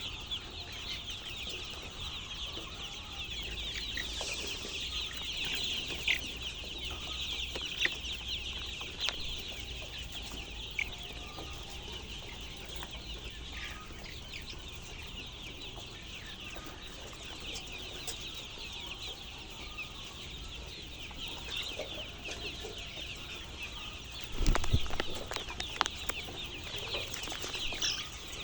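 A flock of chicks peeping continuously in a dense, high-pitched chorus. A brief bump sounds near the end.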